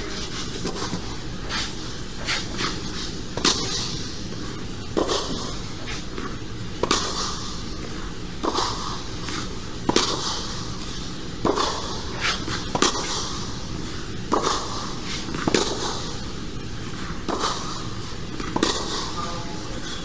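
Tennis rally: a tennis ball struck back and forth with rackets, the near one a Wilson Ultra 100 v4.0 strung with Luxilon ALU Power, and bouncing on clay. Sharp pops come about every second and a half over a steady background noise.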